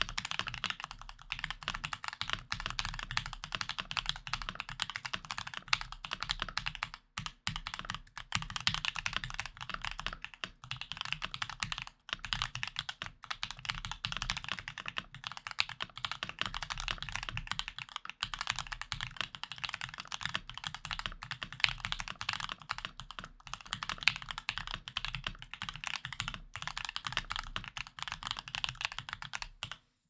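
Fast, continuous typing on a Discipline v2 mechanical keyboard with JWK H1 linear switches lubed with 205g0 and Staebies stabilizers: a dense run of keystroke clacks with a few brief pauses, breaking off near the end.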